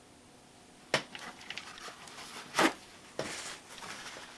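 Small handling sounds on a workbench: a sharp tap about a second in, a brief swish, then soft rustling of a cloth wiping the dirty Glock striker parts.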